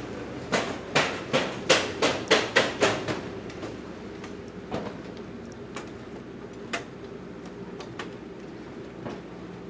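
Footsteps on a ferry's metal stairs and gangway: a quick run of about ten clanking steps, about four a second, in the first three seconds, then a few scattered lighter knocks, over a steady low hum.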